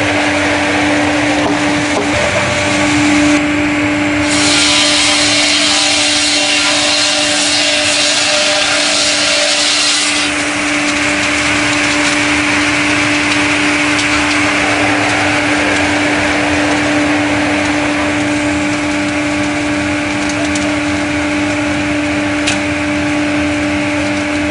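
StrojCAD KR 58 L6 log sawmill running with a steady hum and machine noise. From about four seconds in, a louder, higher hiss joins for about six seconds, then drops away.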